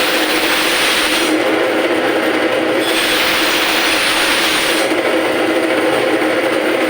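Motorised fish-cutting machine running with a steady hum. It turns harsher and hissier twice: at the start for about a second, then again for about two seconds from near the middle.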